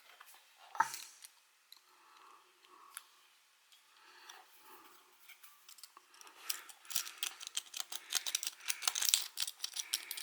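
Lock-pick rake being worked in a padlock's pin tumblers: a single click about a second in, faint scraping, then rapid metallic clicking and scratching from about six seconds in as the pins are raked.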